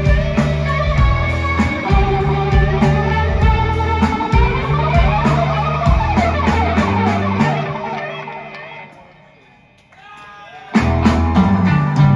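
Live rock band playing an instrumental passage, with guitar prominent over bass and drums. The band thins out and fades to a quiet moment about eight seconds in, then comes back in abruptly at full volume near the end.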